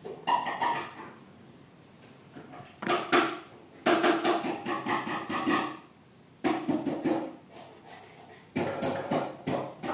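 A voice in short bursts, with a few sharp knocks about three seconds in.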